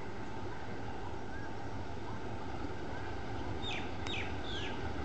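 Sri Lanka Railways M4-class diesel locomotive No. 752 running as it approaches at slow speed, a steady low rumble. A bird calls over it: a faint short chirp repeating about every second, and three quick high calls that fall in pitch, near the end.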